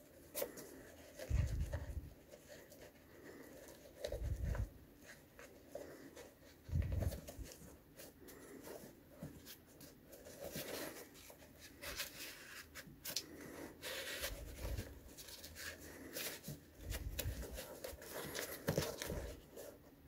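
Flat shoelaces rustling and scraping as they are pulled and tied on a sneaker, with handling noise from the shoe and its tongue and a few soft low thumps every few seconds.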